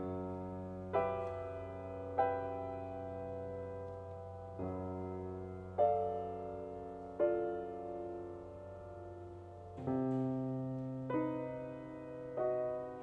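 Grand piano playing a slow passage of chords, a new chord struck about every second and a half and left to die away over a held bass note. The bass note moves up about ten seconds in.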